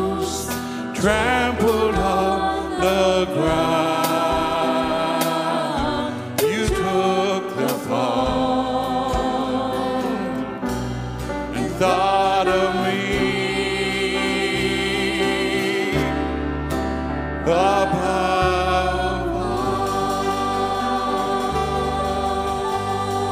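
Church worship song: several voices singing with vibrato over instrumental backing with low bass notes, holding long notes toward the end.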